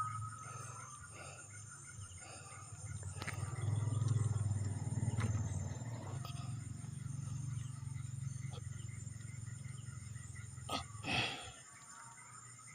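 Night insects chirring steadily at a high pitch over a low rumble that swells in the middle and stops near the end. A few sharp clicks and a short swish come near the end.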